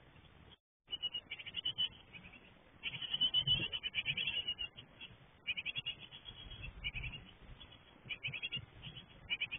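Japanese tit nestlings near fledging giving rapid, high-pitched begging calls in repeated bursts as a parent comes in to feed them, with a few soft bumps of birds moving about in the wooden nest box.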